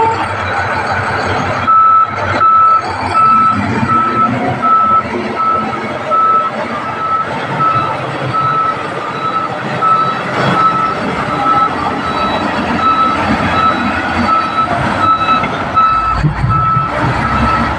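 Bulldozer backing up with its reverse alarm beeping at a steady rate, about three beeps every two seconds, over the running diesel engine. The beeping starts about two seconds in.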